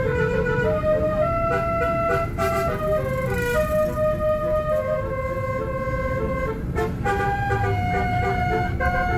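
Bus 'telolet' musical air horn playing a tune of held notes that step up and down in pitch, over a steady low road rumble.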